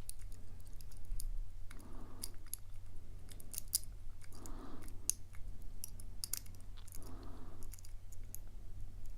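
Light, irregular metallic clicks and ticks of a lock pick and tension wrench working the pins inside a steel padlock during single-pin picking.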